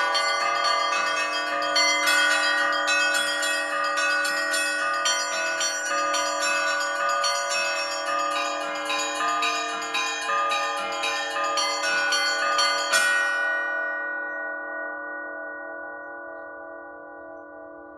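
Orthodox church bells rung as a peal, the small high bells struck rapidly over the steady hum of the larger bells. About 13 seconds in the striking stops and the bells ring on, fading away.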